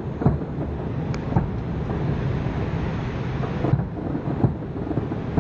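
Fireworks going off: a continuous rumble of overlapping booms with irregular sharper bangs standing out several times.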